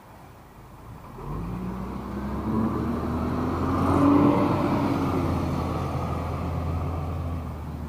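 City bus pulling away and passing close by, a low engine rumble that starts about a second in, its note rising as it speeds up, loudest about four seconds in, then easing off as it drives away.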